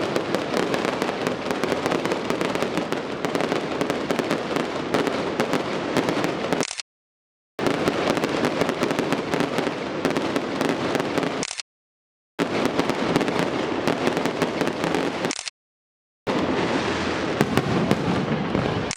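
Fireworks display: a dense, continuous crackle of many shells bursting, with frequent sharp bangs. The sound cuts out completely three times, each time for under a second.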